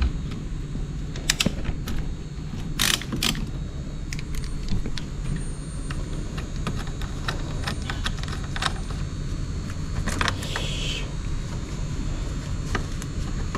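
Metal clicks and clinks of a wrench working the battery terminal nuts as the car battery is disconnected, a few scattered taps with a short cluster about three seconds in, over a steady low hum.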